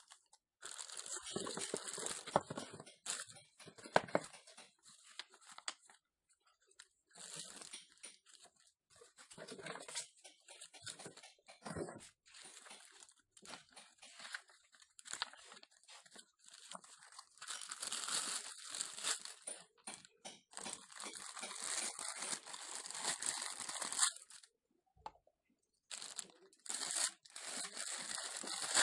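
Packaging being handled and opened: irregular bursts of crinkling and tearing, with a few short pauses and the busiest stretch in the second half.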